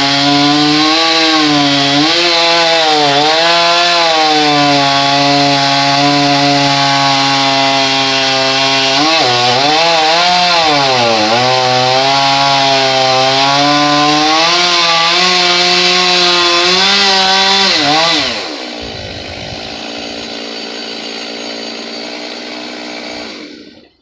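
Two-stroke chainsaw running at high revs, its pitch wavering and dipping as it works under load in the oak trunk. About eighteen seconds in the revs fall to a lower steady idle, and the engine cuts off just before the end.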